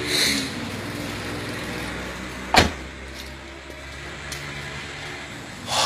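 A motor vehicle running close by with a low steady hum, and one sharp knock about two and a half seconds in.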